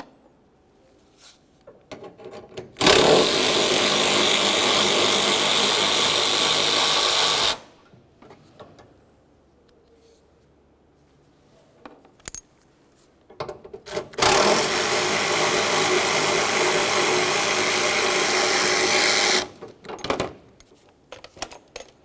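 Power tool spinning a 10 mm socket to back out the hood-latch mounting bolts. There are two steady runs of about five seconds each, one about three seconds in and one about fourteen seconds in, with small clicks and knocks of the socket and bolts around them.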